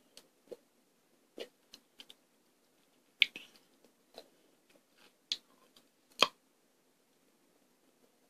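Wet mouth clicks and lip smacks from sucking on a sour lollipop: about ten short, irregular smacks, the loudest about three and six seconds in.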